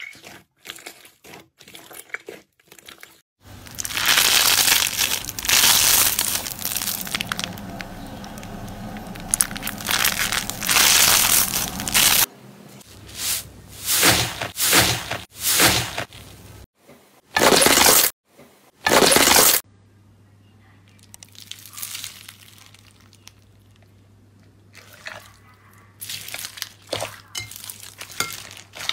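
Hands pressing and squeezing thick crusted iceberg slime and foam slime in glass bowls, making a crackling, popping sound as the set crust and air pockets break. Sparse crackles at first, then several seconds of dense crackling, then a run of separate loud squeezes, and fainter crackling towards the end.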